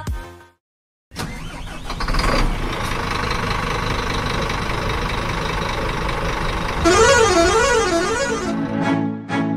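A bus engine running steadily, then a musical horn sounding with a warbling tone that rises and falls about three times, about seven seconds in.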